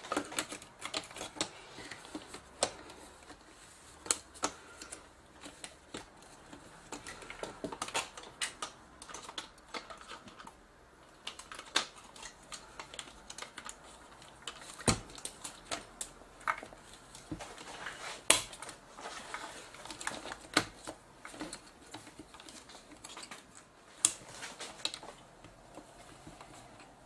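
Irregular clicks, taps and light knocks of hands fitting the side panel and cable connectors onto a JVC GY-HD201E camcorder body, with a few louder snaps among them.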